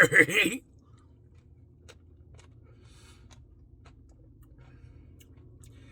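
Person quietly eating an ice cream Blizzard: a few faint, scattered small clicks and soft mouth sounds over a low room hum, after a voice that cuts off about half a second in.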